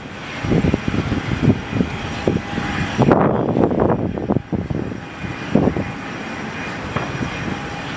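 Airliner engine noise at the airport, a steady rush with faint tones in it, with gusts of wind buffeting the microphone, strongest about three seconds in.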